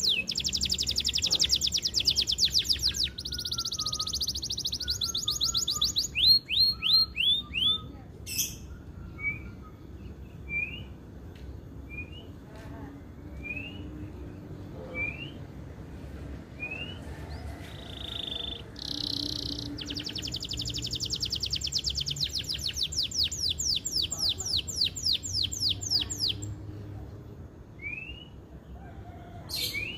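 Male canary singing: long, fast, high-pitched trills and buzzing rolls, a stretch of single short rising chirps through the middle, then another long rapid trill.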